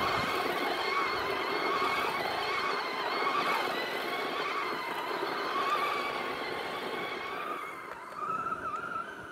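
A vehicle running with a steady whine that wavers in pitch, growing fainter over the last second or two.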